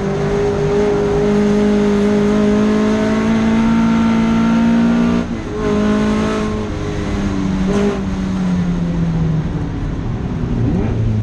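Datsun Fairlady 2000 (SR311) roadster's four-cylinder engine running hard under load, its pitch holding steady. About five seconds in the sound dips briefly, as at a gear change, then the revs ease off slowly.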